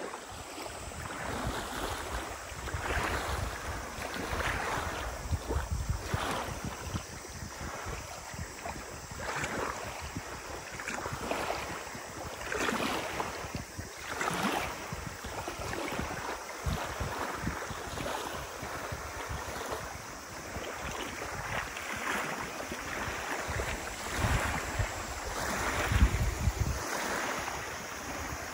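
Small freshwater lake waves lapping and splashing onto a gravel beach, each wash swelling and falling about every one and a half to two seconds. Wind buffets the microphone with a low rumble in the first few seconds and again near the end.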